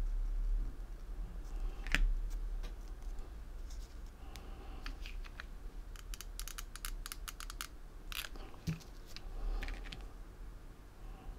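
Small clicks and scratchy taps of hands working with a hot glue gun and satin ribbon leaves on a felt-backed hair clip, with a quick run of clicks about six seconds in, over a low steady hum.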